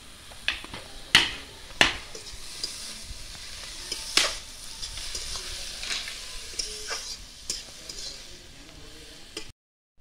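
Spatula scraping and knocking against an aluminium kadai as saanche shak greens are stirred and fried in mustard oil, over a steady sizzle. Sharp strikes stand out about a second in, near two seconds and near four seconds. The sound cuts off abruptly just before the end.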